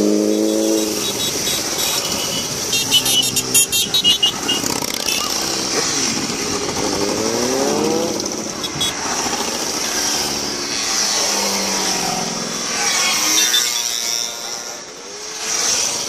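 A line of motorcycles riding past one after another, their engines running at moderate speed. One passes louder with a pulsing exhaust about three seconds in, and one revs up with a rising pitch around seven seconds in.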